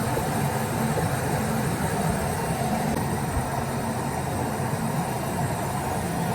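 AccTek AKM1325 CNC router running: steady machine noise with a low hum and a faint high whine.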